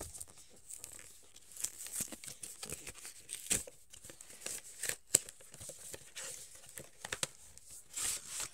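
Toy doll packaging being torn open and crinkled by hand: irregular rips, crackles and rustles, with a sharp snap about five seconds in.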